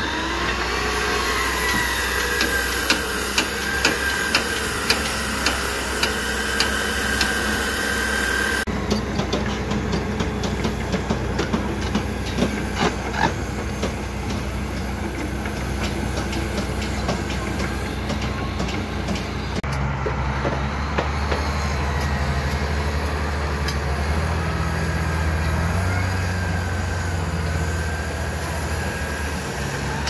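Construction-site machinery: repeated sharp metallic knocks over the first several seconds, then a steady low engine hum in the later part.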